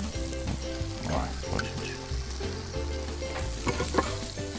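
Omelette sizzling in a hot frying pan as it is lifted out with a spatula, with a few short scrapes and clicks of the spatula, over background music.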